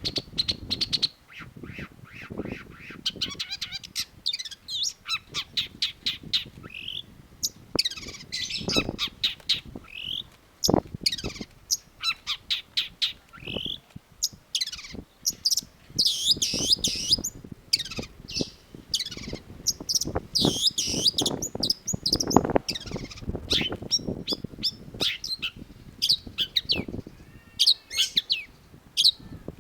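Long-tailed shrike singing a rapid, varied song: streams of short chirping notes and slurred whistles mixed with harsher chattering notes, in quick succession.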